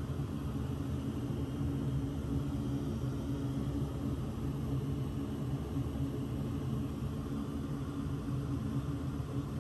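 Steady low droning hum with a light hiss, even throughout, from running kitchen background noise.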